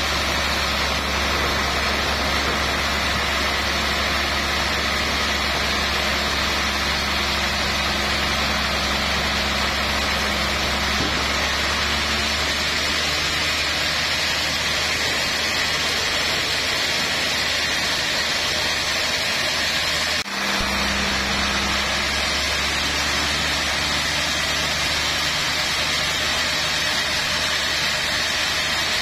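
Large vertical band sawmill running steadily, its motor humming low under the whirr of the saw blade. The sound holds level throughout except for one momentary drop about two-thirds of the way through.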